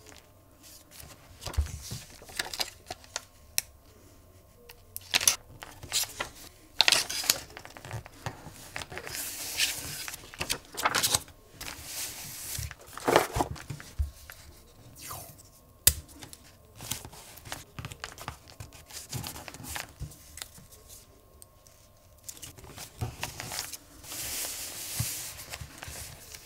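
Paper-crafting sounds close up: a rubber stamp pressed onto a journal page, washi tape pulled off its roll and torn, and paper rustled and pressed flat. They come as a string of separate taps, rustles and short tearing sounds.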